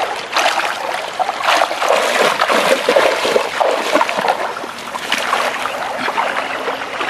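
Shallow stream water splashing and sloshing as a man wades through it, hauling in a cast net, in irregular splashes that are busiest about two to four seconds in.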